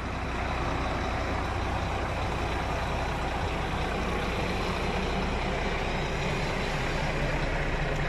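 Diesel truck engine idling with a steady low hum.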